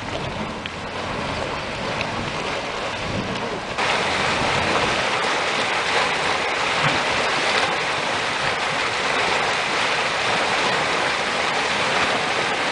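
Hot spring churning and sloshing inside a steaming cave. About four seconds in it cuts to a louder, steady hiss of steam venting from a grey mud pot.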